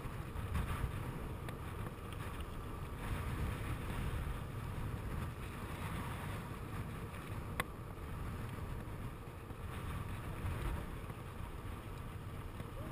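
Wind buffeting the camera microphone on a moving bicycle, a steady low rumble mixed with tyre noise on asphalt. There is a single sharp click a little over halfway through.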